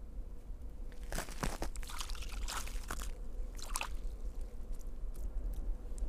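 Frozen moss crunching and crackling as it is squeezed and pulled by hand, in three short bursts about a second, two and a half and nearly four seconds in.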